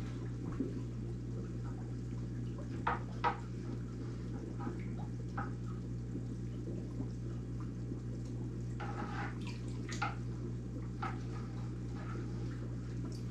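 Aquarium pump humming steadily under a soft wash of bubbling water. A few light drips and splashes break through, the clearest near three seconds in and again around nine to ten seconds.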